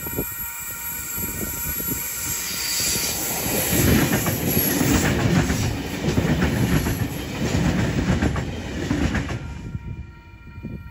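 A train passing close by. Rumble and wheel-on-rail noise build over the first few seconds, stay loud with a rapid clatter through the middle, and fall away sharply near the end.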